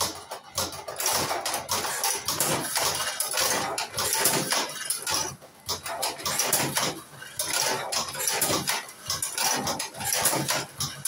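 Tobacco-filling cigarette rolling machine at work, a continuous run of rattling mechanical strokes with short pauses as cigarettes are filled one after another.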